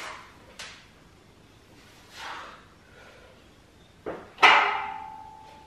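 Loaded barbell and iron plates knocking against the steel squat rack's hooks as the bar is set on the back and unracked: a few sharp knocks, then one loud clang near the end that rings on for about a second.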